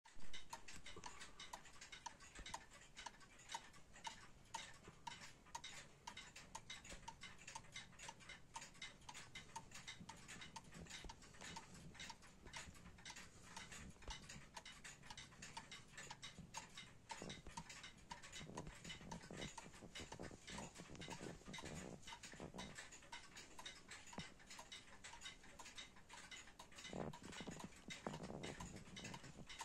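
Warmink Wuba Dutch weight-driven wall clock ticking steadily and faintly, its movement beating evenly.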